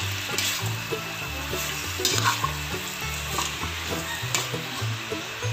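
Pork sizzling as it is sautéed with tomato in an aluminium pot, a metal spoon stirring and scraping against the pot several times. A low bass line of background music runs underneath.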